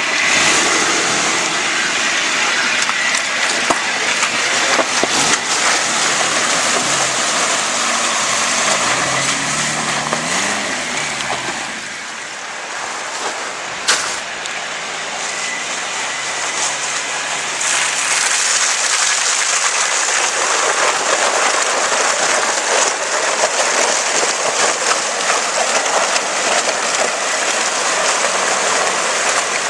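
Suzuki Samurai 4x4 working off-road: its engine revs with the pitch rising and falling under a general rumble and rattle of the vehicle. There is a sharp click about halfway through. After that comes a steady rushing, splashing noise as the Samurai drives through muddy floodwater.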